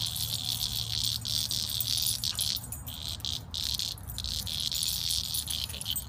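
Insects chirring outdoors: a dense, high-pitched buzz broken by a few short pauses, over a low rumble.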